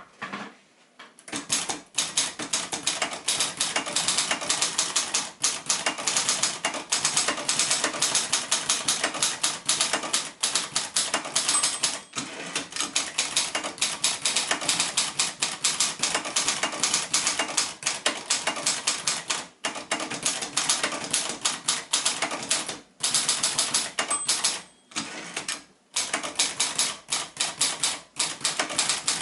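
Royal Century ultraportable manual typewriter, built by Silver Seiko, being typed on at a brisk pace: a dense stream of key strikes starting about a second and a half in, broken by a few short pauses.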